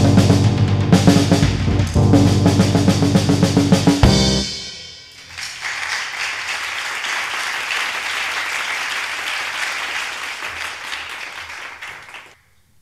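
Drum kit played hard in a 4/4 exercise, bass drum, snare and cymbals together, ending about four seconds in on a final hit that rings away. Then audience applause, which cuts off abruptly just before the end.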